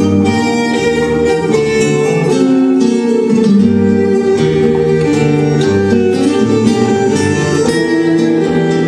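Tango music playing steadily, with bowed violins and plucked string notes.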